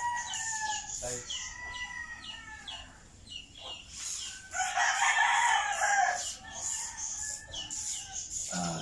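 A rooster crowing: one long, loud crow about five seconds in, with shorter calls before it.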